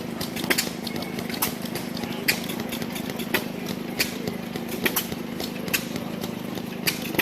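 1920 Harris 25-30 hp combine harvester engine idling slowly: a steady low hum with a sharp tick roughly once a second.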